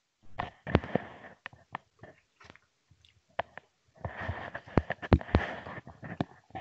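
A man taking a drink close to the microphone: sips, swallows and breaths mixed with a few sharp clicks, in two bouts, the second starting about four seconds in.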